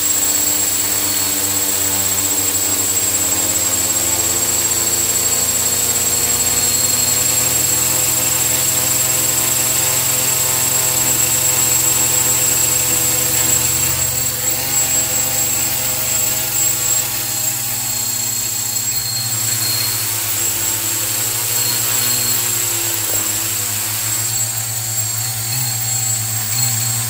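Brushless motors and propellers of a homemade multirotor drone running steadily, a high-pitched whine over a lower hum. The sound wavers and turns uneven from about halfway through.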